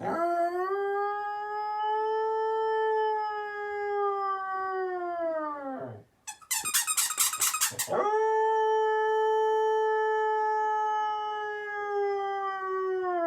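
A dog gives two long howls, each held steady for about six seconds and sliding down in pitch as it ends. Between them comes a quick run of squeaks from a squeaky toy being chewed.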